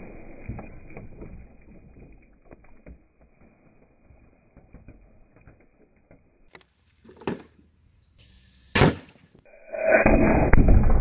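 Compressed-air golf ball gun shooting targets. The loud burst of a gallon water bottle fades out at the start. A short knock comes about seven seconds in, then a single sharp shot from the air gun about nine seconds in. Near the end there is a loud, drawn-out impact as the golf ball goes through a plastic tub into the backstop.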